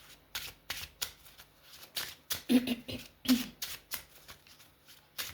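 A deck of tarot cards being shuffled by hand: a run of short, sharp, irregular card flicks and slaps.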